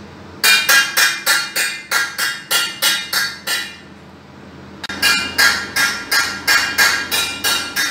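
Metal pot being beaten rapidly in a pot-banging protest, close by. It gives about four ringing metallic strikes a second, in two runs with a pause of about a second in the middle.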